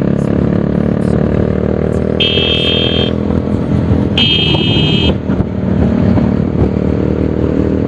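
Bajaj Pulsar 220 single-cylinder engine running at steady cruising speed through an aftermarket SC Project exhaust. A vehicle horn sounds twice, about a second each, roughly two and four seconds in.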